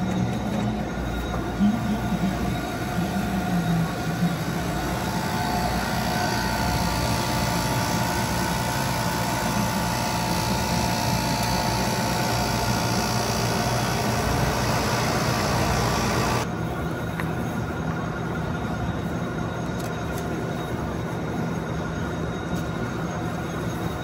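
Steady mechanical hum of a running industrial refrigeration chiller, with several held tones over a hiss. About two-thirds of the way through the higher hiss drops away abruptly while the low hum carries on.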